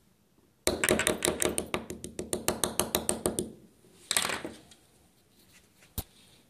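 Small Torx screwdriver clicking quickly, about seven clicks a second for nearly three seconds, as the screws go back into the Tracker G500 GPS collar's cover. A brief rattle follows, then a single sharp tap near the end.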